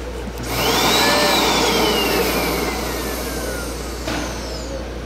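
Suction motor of a soldering iron's built-in automatic solder sucker running with a rush of air, sucking molten solder off a circuit-board joint. Its whine climbs briefly, then falls steadily for about three seconds as it winds down, with a click about four seconds in.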